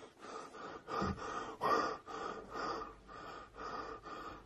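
A frightened person breathing quickly and heavily, about two breaths a second.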